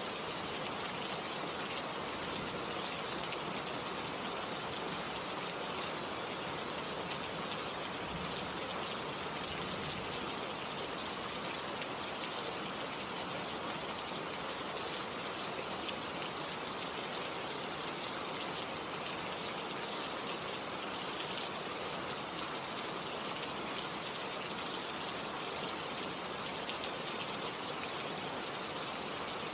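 Steady rain falling, a dense even hiss with fine pattering drops.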